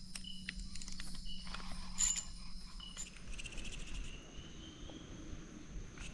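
Insects calling in a forest: a steady high-pitched buzzing, with short chirps repeating every second or so and a rapid pulsing trill that starts about three seconds in. A brief scratchy noise about two seconds in.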